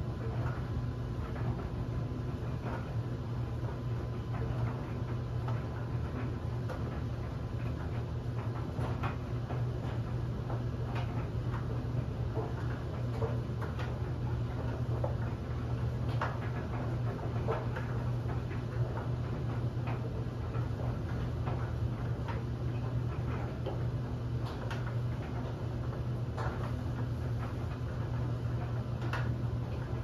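LG DLE7300WE clothes dryer running, its drum tumbling a load of bed linens with a steady low hum. Irregular light ticks and knocks come from the tumbling load.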